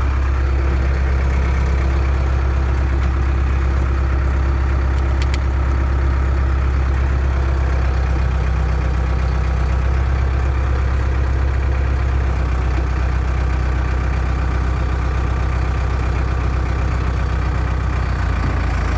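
Diesel engine of a 2001 New Holland LB75B backhoe running steadily at low speed, with an even low drone and no revving.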